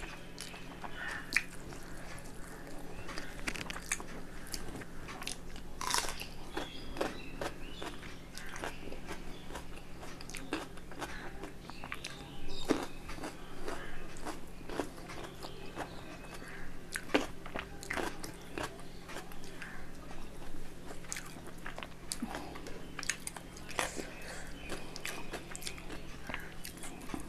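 Close-miked eating: chewing and lip smacks with crisp, crunchy bites, many small clicks scattered irregularly, over a steady low hum.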